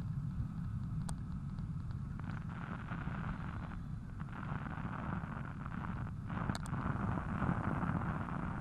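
Wind buffeting the microphone of a helmet-mounted action camera while cycling, a steady low rumble, with a hiss of road or traffic noise swelling from about two seconds in until near the end, and a few faint clicks.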